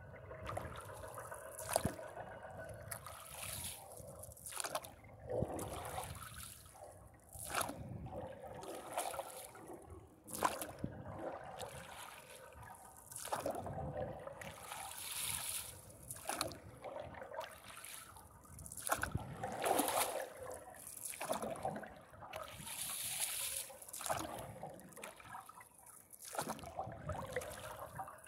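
Single-blade paddle stroking through lake water beside a paddleboard: a splash and slosh every few seconds as the blade goes in and pulls, with water trickling and dripping between strokes.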